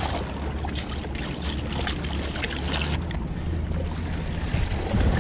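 Steady low wind rumble on the microphone over shallow water lapping and splashing against rocks, with a hooked red drum thrashing at the surface.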